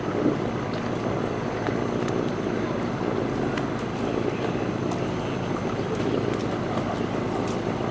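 Motorboat engine running steadily, a low even hum with no change in speed.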